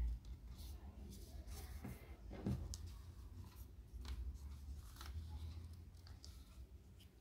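Sheet of origami paper rustling and crinkling as it is unfolded and creased by hand: scattered short crackles, with one soft knock about two and a half seconds in.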